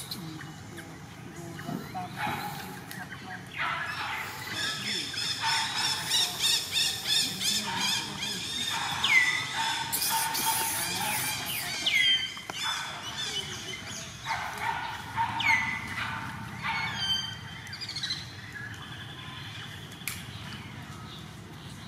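High-pitched animal calls: a quick run of evenly repeated squeals, about two a second, followed by several short cries that slide sharply down in pitch, a few seconds apart.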